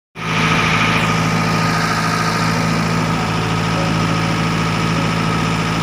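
Mitsubishi 4DR5 four-cylinder diesel engine of an outrigger bangka running steadily with the boat under way.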